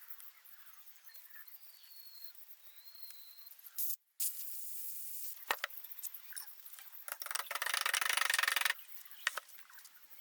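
Faint clicks and knocks of engine parts being handled during assembly, with a hiss lasting about a second and a half a little past the middle.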